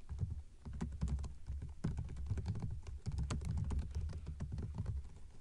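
Typing on a computer keyboard: a quick, uneven run of key clicks, each with a dull low thud.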